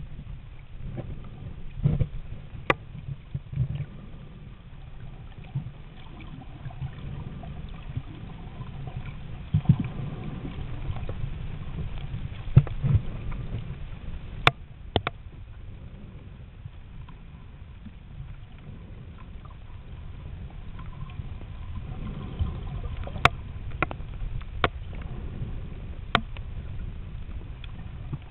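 Muffled underwater rumble of moving water, picked up with the microphone submerged. A handful of sharp clicks is scattered through it, several together near the end.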